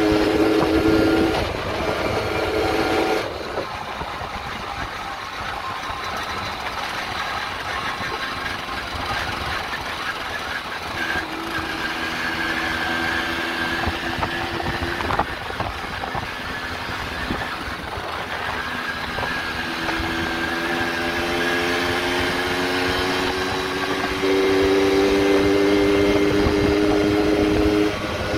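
1970 Balkan 50 moped's 50 cc two-stroke engine running under way, with wind rumble on the microphone. The engine note drops about three seconds in, then climbs slowly through the second half and runs louder for the last few seconds before easing off. It is being ridden gently, still in its running-in period.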